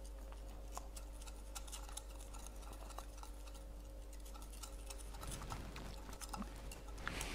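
Glass stirring rod lightly ticking and clinking against the side of a container while stirring a suspension of flour in sugar water before filtering, over a faint steady hum.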